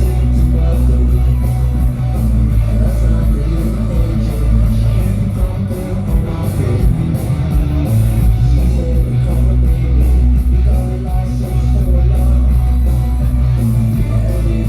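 Loud rock music with electric guitar and heavy bass. The bass drops away briefly about six seconds in and comes back about two seconds later.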